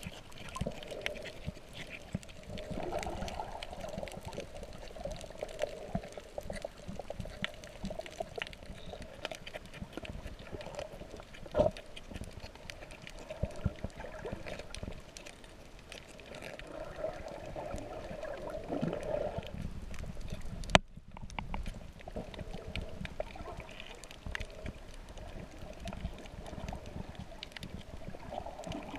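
Muffled underwater sound through a GoPro's waterproof housing: water sloshing and gurgling around the camera, with many small scattered clicks and crackles. A sharp click sounds about 12 s in, and a louder one about two-thirds through.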